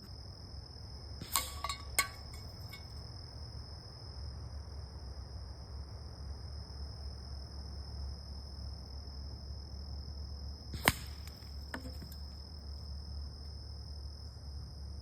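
A .177 calibre air rifle fires a single sharp shot about eleven seconds in, followed under a second later by a fainter knock. Two sharp clicks come about a second and two seconds in. Crickets chirp steadily throughout.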